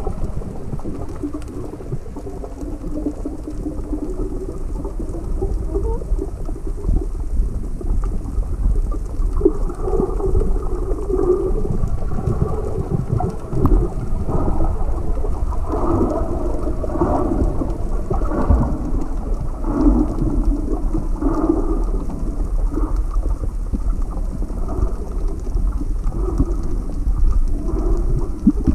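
Muffled underwater sound picked up by a submerged camera: a steady low rumble of moving water, with wavering, dull mid-pitched sounds through the middle part and no clear high sounds.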